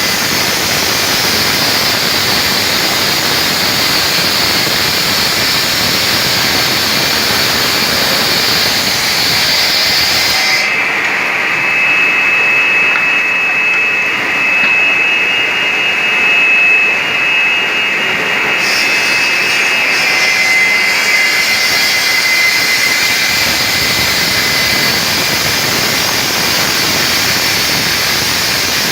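Stone-cutting machine running, a steady loud hiss. A thin high whine rises out of it from about ten seconds in to about eighteen.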